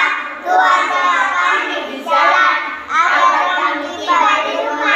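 A group of young children singing a prayer together in unison, in short, evenly spaced phrases.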